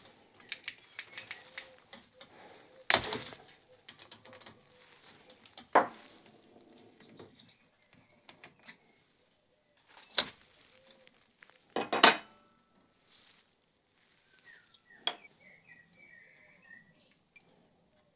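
Metal clinks and clanks of a spanner against a motorcycle fork's top cap as the cap is undone and lifted off the fork tube. There are about half a dozen sharp knocks spread out, with the loudest a double clank about twelve seconds in. Faint bird chirps come near the end.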